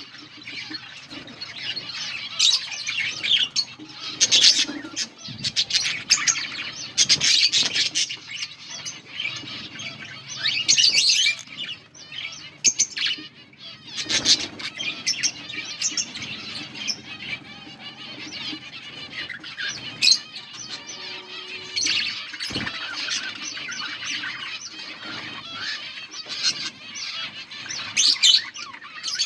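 A colony of budgerigars chirping and chattering, many birds calling at once in a dense, continuous stream of high chirps.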